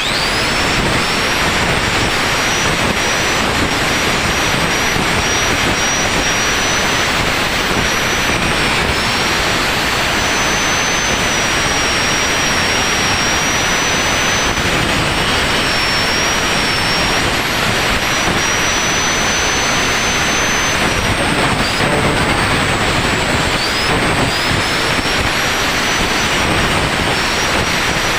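A machine running steadily with a loud even rush of noise and a thin high whine that wavers slightly in pitch.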